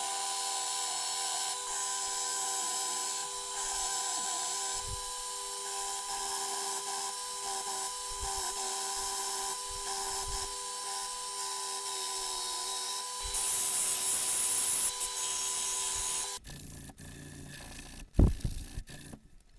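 Small benchtop belt sander running with a steady whine while a wooden hammer handle is pressed against the belt, the sanding hiss growing louder for its last few seconds. The motor noise stops about sixteen seconds in, followed by quieter rubbing of sandpaper on the handle and one sharp knock.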